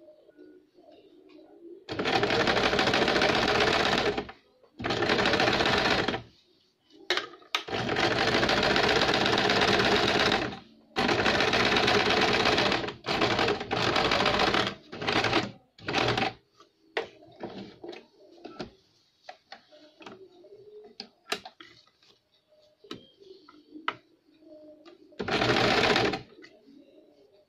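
Electric sewing machine running in short bursts of one to three seconds as it sews a finishing line of topstitching, with pauses between runs. The pauses hold small clicks and rustles as the fabric is turned and repositioned under the needle.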